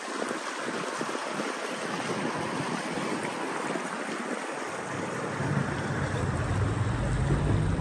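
Wind and lapping river water as a small electric-powered day cruiser passes with no engine note. From about five seconds in, a low rumble of wind buffeting the microphone comes in on top.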